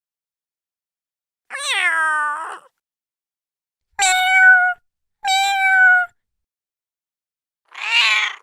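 Domestic cat meowing four times, with short silent gaps between the meows; the first meow falls in pitch and the last is harsher.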